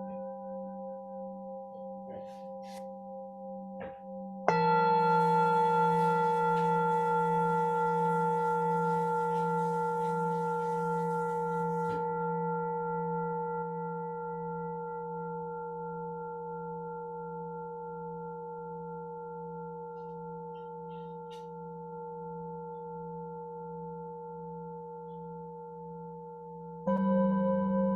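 Singing bowls ringing with long, slowly fading tones and a slow pulsing wobble. A bowl is struck about four and a half seconds in, and another one shortly before the end.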